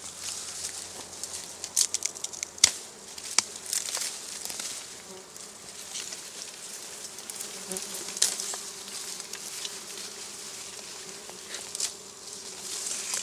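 Dwarf honey bees buzzing around their disturbed comb, a faint steady hum, while dry reed stems rustle and snap sharply several times as hands work through them.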